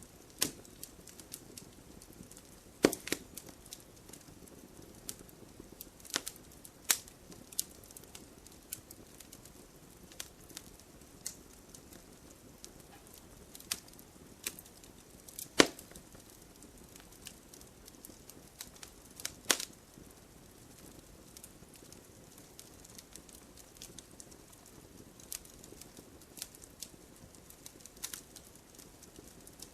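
Campfire crackling: irregular sharp pops and snaps of burning wood over a low steady hiss, with a few much louder pops scattered through.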